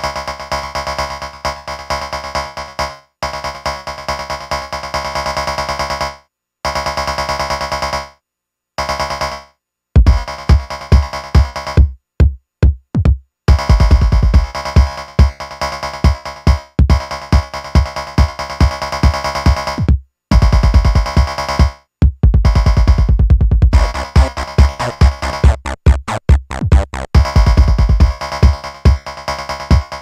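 Live electronic music from drum machine and synthesizer: a sustained synth chord pattern that cuts out abruptly several times, then a heavy kick drum beat comes in about ten seconds in, with a few short drop-outs in the groove.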